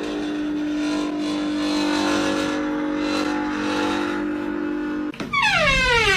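Comedy sound effects: a steady droning tone over a noisy background that cuts off about five seconds in, followed by a descending whistle-like glide falling in pitch.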